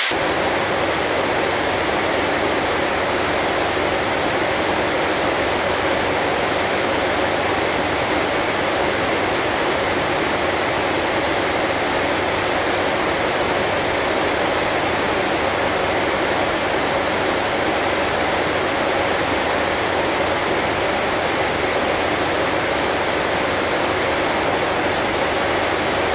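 Steady rushing air noise of a Boeing 747-8 flight deck in cruise, unbroken and even, with a faint steady hum under it; it cuts in suddenly at the start.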